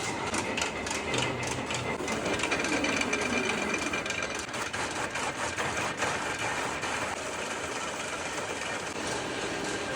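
A small machine running with a fast, even clatter of repeated mechanical clicks.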